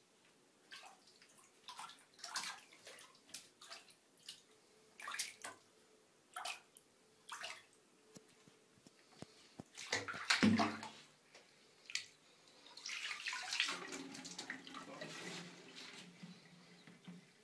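Kittens splashing through shallow bathwater: short splashes one or two a second, with a louder splash about ten seconds in. Near the end a tap runs steadily into a washbasin.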